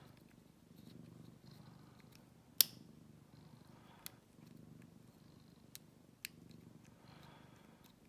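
Domestic cat purring close by, swelling and fading with each breath about once a second. A few sharp clicks from the hook pick and tension wrench working in a Squire #35 padlock, the loudest about two and a half seconds in.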